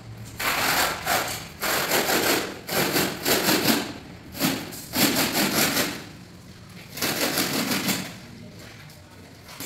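Metal notched spreader box scraped and dragged through a bed of cement tile adhesive, combing it into ridges. There are about six rough scraping strokes in quick succession, with a longer pause near the end.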